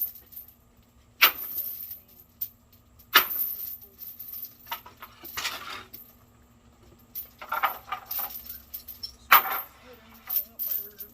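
Wooden boards being beaten with a metal chain to distress them: sharp strikes with the links jangling. The hardest blows land about a second in, about three seconds in and near the end, with lighter knocks between.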